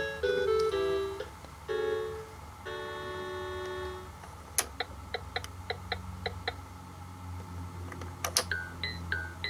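VTech Turn and Learn Driver toy's electronic sound chip playing a short jingle of stepped notes that ends in a held chord, then, after a click, a run of evenly spaced ticks about four or five a second, like a turn signal. Near the end come a couple of sharp plastic clicks from the toy's controls and a repeating falling blip starts, about three a second.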